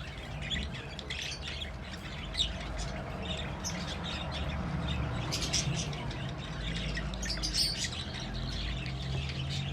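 Budgerigars chirping and chattering in quick, irregular short calls over a low steady hum.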